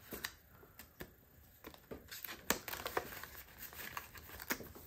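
Paper bills and a plastic cash envelope rustling and crinkling as a stack of bills is handled, in faint scattered rustles and small clicks, the sharpest about two and a half seconds in.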